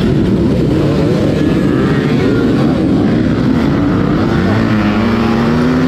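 A pack of dirt bikes accelerating off a race start line together: many engines revving hard at once, their overlapping pitches wavering up and down, loud throughout.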